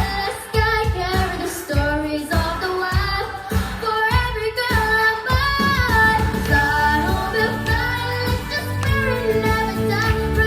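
Background song: young voices singing a melody over a steady beat.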